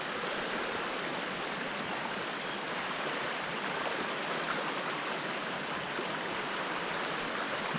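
Fast-flowing river water rushing steadily past the bank, an even continuous wash.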